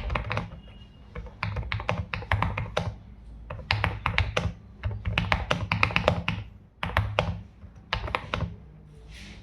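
Typing on an Epomaker TH108 full-size mechanical keyboard with cream jade switches and five-layer foam dampening: quick runs of deep, thocky keystrokes broken by short pauses.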